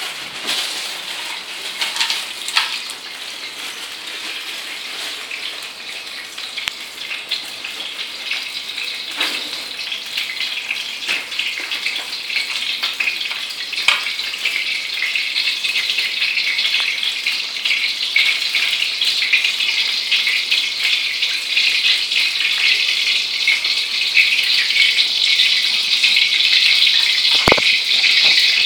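Cooking oil heating in a pan and sizzling with a steady hiss that grows slowly louder. A few knocks of a knife on a cutting board come through it, the sharpest near the end.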